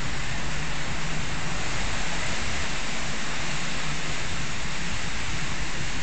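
Typhoon storm noise of wind and rain: a steady, even rush with a low, unsteady rumble underneath.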